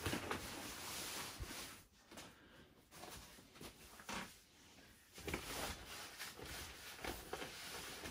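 Black PVC fitted bed sheet rustling and crinkling as it is pulled over and smoothed onto a mattress, quieter for a few seconds in the middle before the crinkling picks up again.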